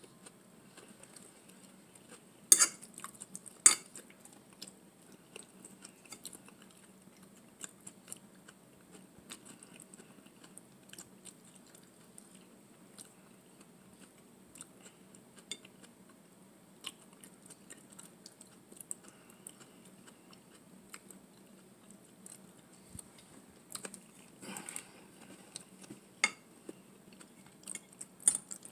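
Close-up chewing of spaghetti and garlic bread, with a metal fork clicking and scraping against a glass bowl. Two sharp clinks a little over a second apart, about two and a half seconds in, are the loudest sounds.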